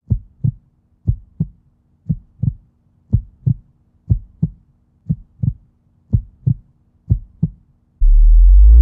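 Heartbeat sound effect: low paired thumps, a lub-dub about once a second, eight beats in all. Near the end a loud, sustained low synthesizer tone cuts in.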